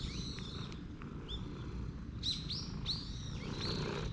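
Small birds chirping: a string of short, high, downward-sweeping calls, densest in the second half, over a steady low background rumble.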